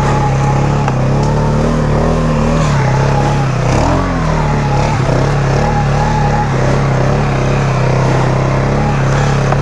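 Polaris Sportsman 570 ATV's single-cylinder engine pulling steadily under load while climbing a hill in low range and two-wheel drive, with a fainter higher whine wavering in pitch above the engine hum.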